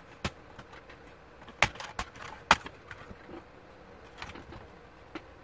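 A few sharp plastic clicks and snaps, the loudest about two and a half seconds in, as the laptop's palmrest is pried loose from its clips.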